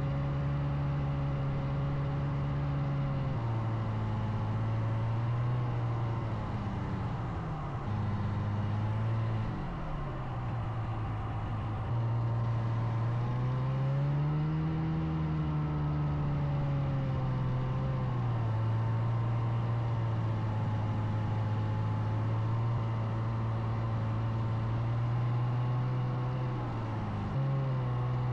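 An engine running steadily, its pitch stepping and gliding up and down a few times as the speed changes.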